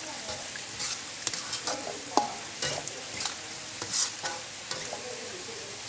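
Spatula stirring vegetables in a wok: a run of scrapes and clinks against the pan, one of them ringing briefly about two seconds in, over a steady sizzle.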